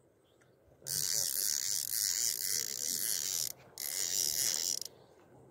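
Fishing reel being cranked: a dense mechanical clicking whir. It starts about a second in, breaks off briefly, then runs again for about another second.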